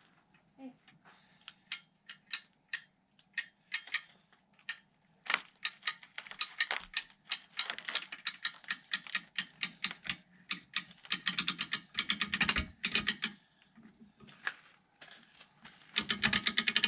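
A hand ratchet clicking in quick runs of strokes. The runs are sparse at first and get faster and denser after about five seconds, with heavier clusters near the end.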